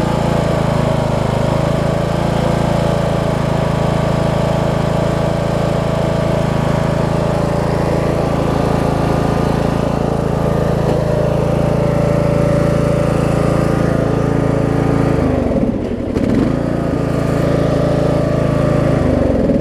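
A riding mower's 15.5 hp Briggs & Stratton engine runs steadily. About fifteen seconds in, the engine speed dips briefly and picks back up, and it dips again near the end.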